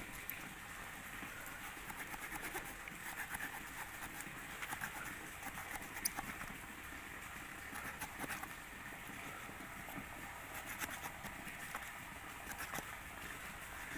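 The small folding wood saw of a Victorinox Huntsman Swiss Army knife rasping back and forth through a thick jamun branch, with scattered sharp clicks.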